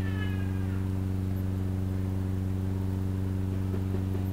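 Steady low electrical hum with evenly spaced overtones, holding at one level, as picked up through a microphone and sound system. A faint high falling tone fades out in the first second.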